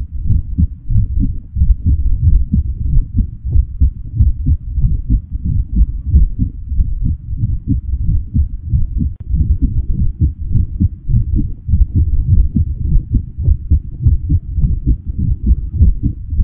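A low, muffled throbbing rumble with nothing above the deep range, pulsing unevenly throughout: a dark heartbeat-like sound effect used as a soundtrack bed.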